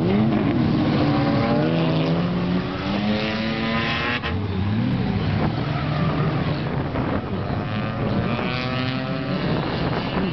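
Several race car engines running at once through a tight corner, their pitches rising as they accelerate out of it, in two main waves of cars.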